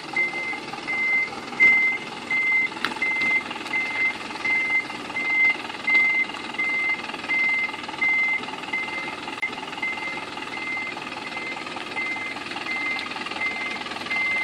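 A vehicle's reversing alarm beeping steadily at about one and a half beeps a second, over an engine running.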